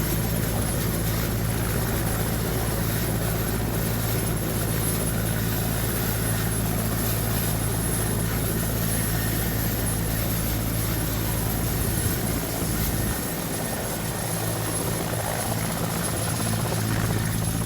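Helicopter running steadily, a continuous rotor and engine drone; the deepest part of the rumble drops away about thirteen seconds in.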